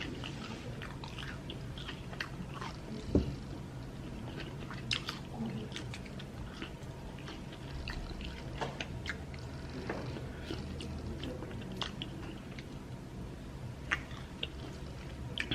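Close-miked chewing and biting: a person eating fish head, with scattered small crunches and wet mouth clicks. A sharp thump comes about three seconds in.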